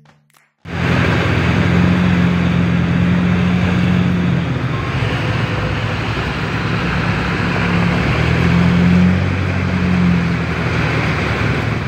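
A vehicle's engine hums steadily under a loud rushing of wind and water as it drives through floodwater in heavy rain. The sound starts suddenly about half a second in.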